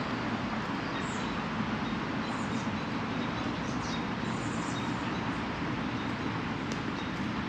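Steady outdoor background noise, an even low rumble and hiss, with a few faint high bird-like chirps scattered through it.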